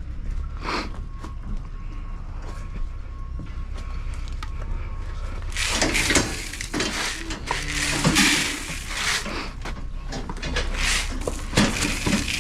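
Ice being knocked and scraped out of frozen calf water buckets: a dense run of scraping and sharp knocks starting about halfway in, over a steady low rumble.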